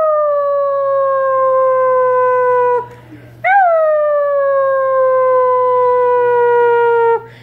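A person howling like a dog to set basset hound puppies howling: two long howls, each jumping up in pitch and then sliding slowly down, held for about three seconds with a short pause between.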